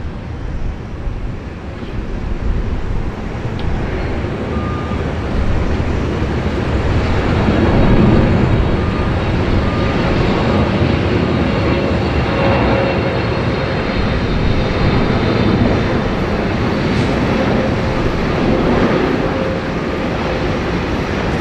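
An airliner's engines, a loud rushing roar with faint steady tones in it, building over the first several seconds and staying loud.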